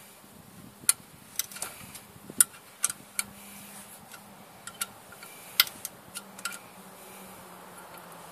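Sharp metallic clicks of a ratchet wrench tightening the clutch pressure-plate bolts, coming singly and in small groups at an irregular pace, with a faint low hum underneath.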